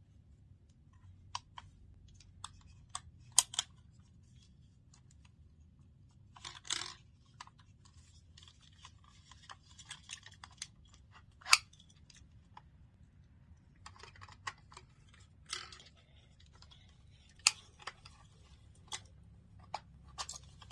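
A small plastic camcorder being handled: scattered sharp clicks and short rustling scrapes as its battery compartment is worked and the battery is taken out and refitted.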